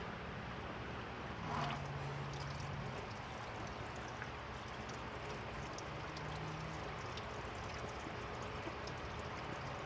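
Fuel trickling and pouring steadily out of the opened fuel filter housing on a pulling tractor's mechanical fuel system.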